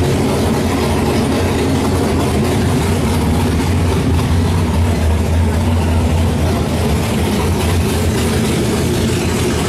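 A vehicle engine idling with a steady low rumble, a little louder about four to six seconds in.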